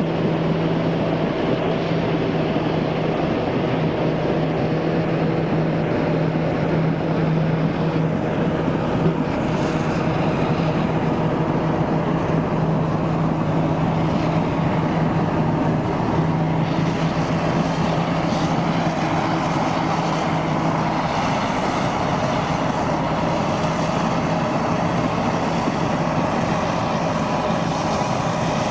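Caterpillar D8K crawler tractor's diesel engine running steadily under load as it hauls a 463G hydraulic scraper full of topsoil, a constant heavy drone with a fixed pitch.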